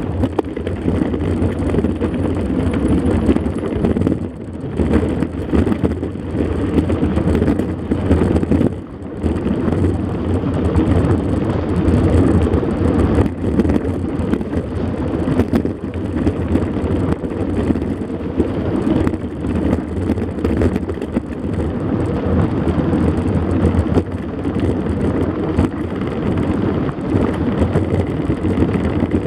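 Mountain bike rolling over a rough dirt road of sand and stones: tyres crunching and the bike rattling continuously under a loud low rumble.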